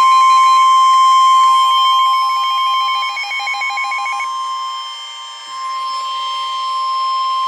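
NOAA Weather Radio 1050 Hz warning alarm tone, a loud, steady single pitch announcing an incoming warning broadcast. A rapid pulsing beep sounds alongside it until about halfway through.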